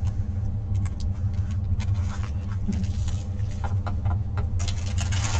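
Clear plastic film over a diamond painting canvas crinkling as the canvas is handled and laid flat, with scattered small clicks and a denser burst of crinkling near the end. A steady low hum runs underneath.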